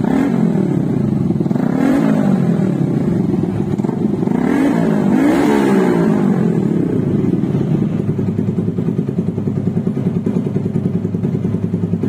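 Yamaha R15's single-cylinder engine through an SC Project aftermarket exhaust, loud: the throttle is blipped about four times in the first six seconds, pitch rising and falling with each rev, then it settles to a steady idle.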